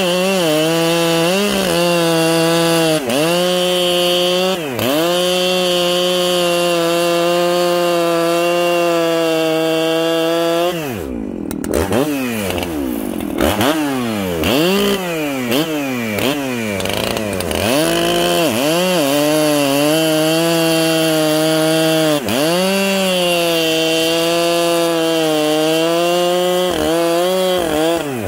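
Two-stroke chainsaw running at high revs, held steady for stretches and blipped down and back up again and again. About 11 seconds in the revs drop sharply, then the engine is revved up and down in a run of quick blips.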